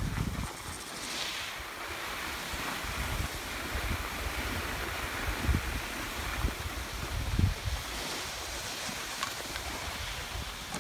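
Skis hissing and scraping steadily over groomed snow while skiing downhill, with wind buffeting the microphone in low gusts.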